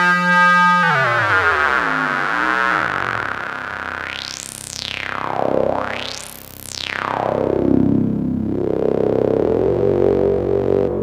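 Noise Engineering Sinc Iter oscillator in super mode (six stacked oscillators) played through a band-pass filter: a buzzy synth tone drops in pitch, then the filter's peak sweeps up to a high whistle and back down twice, before a steady lower tone returns near the end.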